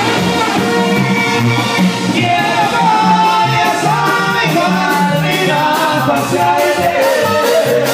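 Live Mexican banda music: a brass band of trumpets and trombones playing over a steady bass beat, with a voice carrying a wavering melody from about two seconds in.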